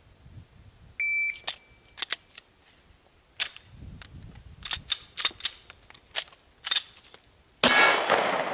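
A shot-timer start beep about a second in, then a string of sharp metallic clacks as a double feed is cleared by hand on a Glock 17-based 9mm PDW: magazine stripped out, slide racked, magazine back in, slide racked again. Near the end a single 9mm shot, the loudest sound, rings out and dies away slowly.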